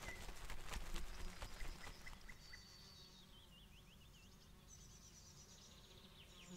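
Outdoor nature ambience of birds chirping high, with a rapid run of faint clicks over the first two seconds that then dies away, leaving quieter chirps.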